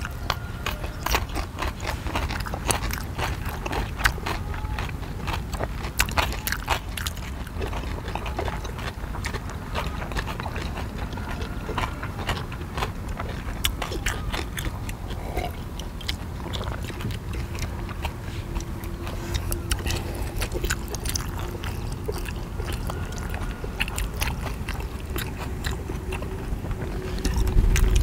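Close-miked eating: people biting into and chewing steamed dumplings, with many short wet mouth clicks and smacks throughout.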